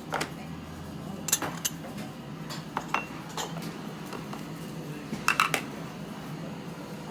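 Dishes and tableware clinking at a restaurant table: scattered sharp clinks, one ringing briefly about three seconds in and a quick cluster of several about five seconds in, over a steady low hum.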